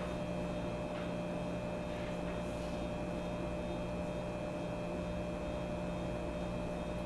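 Room tone: a steady electrical hum holding a few constant tones, over a faint even hiss.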